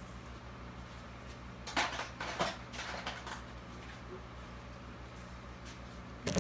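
Small plastic parts of an RJ45 keystone jack and hand tools being handled: a cluster of clicks and rattles about two seconds in and a single sharp click near the end, over a steady low electrical hum.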